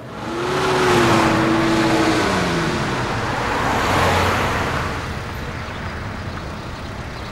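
Cars passing close by on a road: an engine tone falls steadily in pitch as one car goes past with a rush of tyre noise, and a second pass swells about four seconds in before a lower steady road sound.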